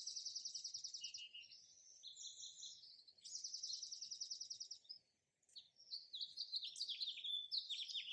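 Songbirds chirping: quick falling chirps, with a fast trill at the start and another about three seconds in, and a brief pause a little past the middle.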